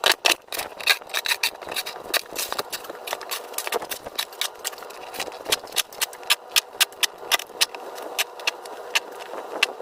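Dry snow crunching and crackling in a rapid, irregular run of sharp cracks, several a second.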